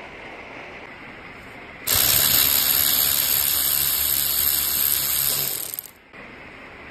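Cordless electric ratchet running for about four seconds, its motor whirring steadily as it backs out a screw from the jaw housing of a sheet metal shrinker. It starts suddenly about two seconds in and cuts off just before six seconds.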